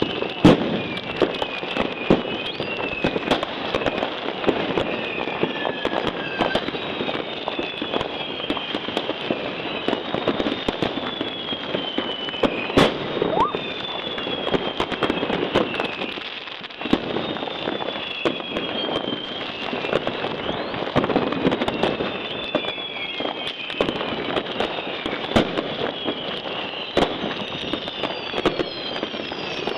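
Many fireworks going off at once: a constant crackle of firecrackers with dozens of sharp bangs, and high whistles falling in pitch, several overlapping.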